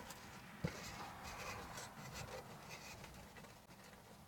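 Faint rustling and small clicks of things being handled inside a parked car's cabin, with one sharp click about two-thirds of a second in.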